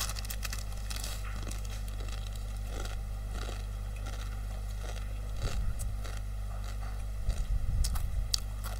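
Crinkling of a plastic instant-noodle packet and crunching of dry instant noodles being eaten, heard as scattered sharp crackles over a steady low hum. A few dull thumps come about five and a half seconds in and again near the end.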